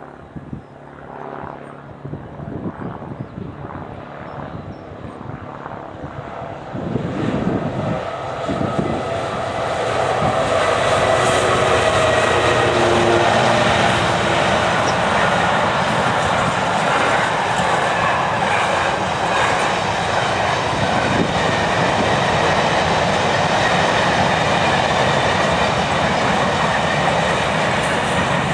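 A train approaching and running past at speed: a rush of wheels on rail that builds over the first ten seconds, then holds loud and steady before cutting off suddenly at the end.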